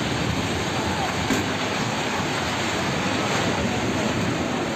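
A steady, loud rushing noise as a multi-storey apartment building collapses in an earthquake, mixed with wind buffeting the phone microphone.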